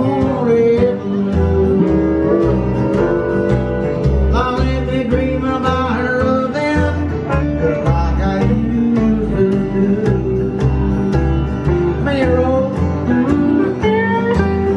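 Live country band playing a shuffle: strummed acoustic guitar, upright bass on the beat and drums, with a Fender steel guitar sliding between notes.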